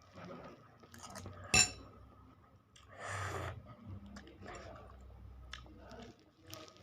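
Eating utensils clinking against a bowl, with one sharp ringing clink about a second and a half in and scattered lighter clicks, plus a brief noisy rustle around three seconds.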